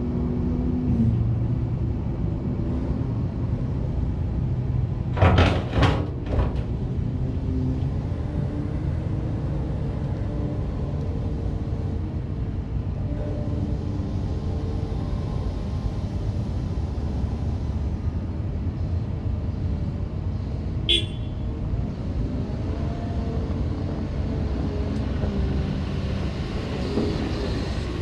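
2015 Caterpillar 930M wheel loader's diesel engine running steadily while the bucket is raised and the machine drives off, picking up in pitch near the end. A cluster of sharp knocks comes about five to six seconds in, and a brief high squeak about three-quarters of the way through.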